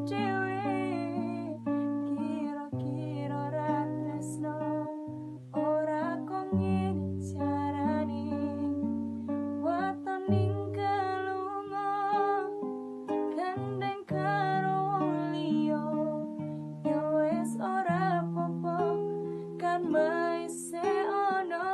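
A woman singing a smooth melody with vibrato over a plucked-string accompaniment and held bass notes.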